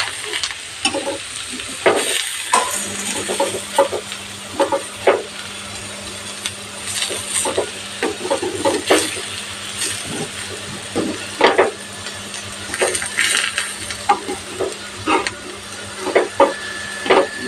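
Banana-leaf parcels sizzling in mustard oil on a tawa over low heat, with a spatula scraping and tapping the pan again and again as they are pressed and turned.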